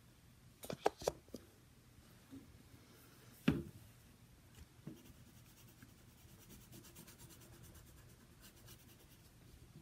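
Black coloured pencil shading on paper, a faint steady scratching. A few sharp clicks come in the first second and a half, and a single louder knock at about three and a half seconds.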